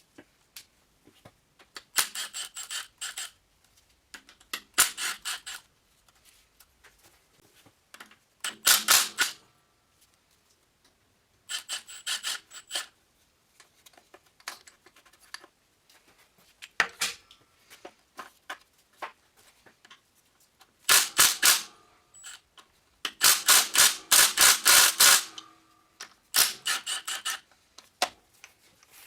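Impact wrench hammering in short bursts of rapid clicks, about eight bursts with pauses between, the longest lasting about two seconds near the end, as it spins bolts off a Subaru EJ20 engine.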